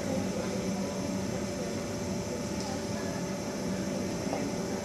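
Steady hum and hiss of a large sports hall, with faint indistinct voices.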